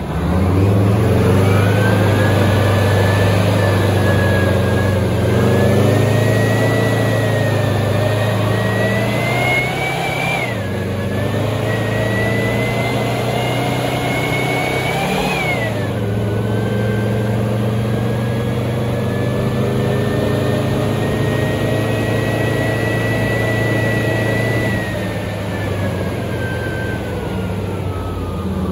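Type 74 main battle tank's air-cooled ten-cylinder diesel engine under way, heard from on top of the hull. The engine pitch climbs twice and drops sharply after each climb, as at gear changes, then holds steady and falls away near the end. A high whine rises and falls with the engine.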